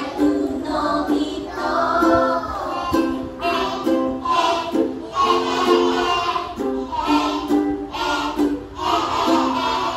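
A woman singing a song while strumming a ukulele.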